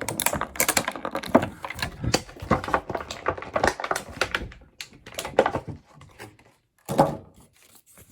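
Rapid clicking and clattering of small plastic toy packaging being handled and opened, dense for about the first four and a half seconds, then a few scattered clicks and one sharper click about seven seconds in.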